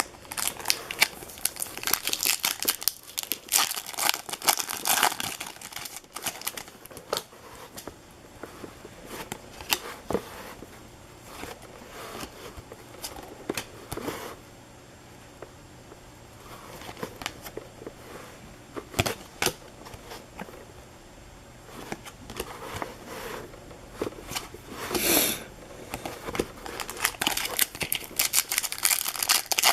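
Baseball card pack wrappers being torn open and crinkled by hand, in busy bursts at the start and again near the end, with a sparser stretch in between.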